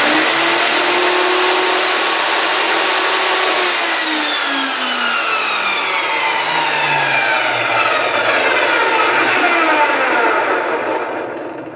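Bosch GTS1031 10-inch jobsite table saw motor and blade running at full speed with a steady whine. About four seconds in it is switched off and winds down, the whine falling steadily in pitch for some seven seconds until it fades out near the end.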